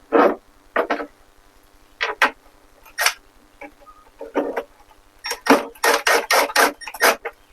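Power drill-driver run in short trigger bursts, driving self-tapping screws into a steel frame. A few spaced bursts at first, then a quick string of them near the end.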